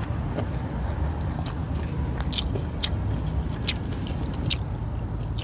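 A person chewing crunchy food, with a handful of short sharp crunches spread through, over a steady low rumble.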